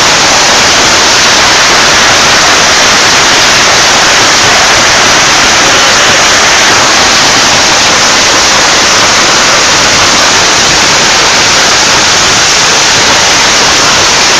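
Heavy hail pelting down: a dense, steady, very loud noise.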